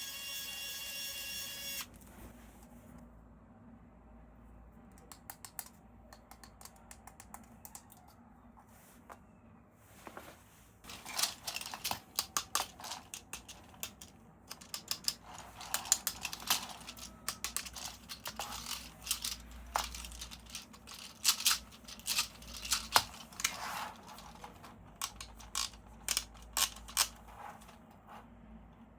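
Toy packaging being handled and opened: bursts of rapid crackling and clicking of plastic and cardboard, loudest in the second half. It opens with a steady buzzing tone lasting about two seconds.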